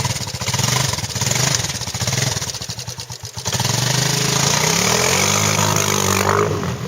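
Quad (ATV) engine running hard as it drives through pond water. After about five seconds it drops in pitch, bogs and stalls near the end, which the rider puts down to vapor lock.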